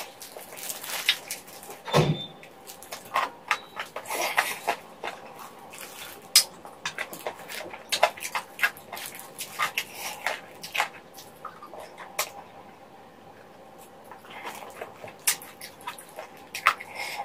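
Close-miked mouth sounds of someone eating spicy braised chicken feet: irregular wet clicks, smacks and sucking as the skin and cartilage are chewed off the bones, with one deeper, louder sound about two seconds in.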